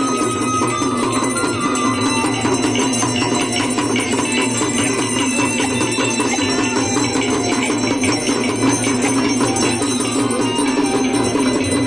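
Aarti hand bells ringing rapidly and without pause, over devotional music played loud.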